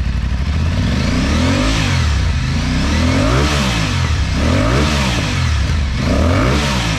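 Aprilia Tuareg 660's parallel-twin motorcycle engine idling and being revved four times, the pitch rising and falling back about every one and a half seconds.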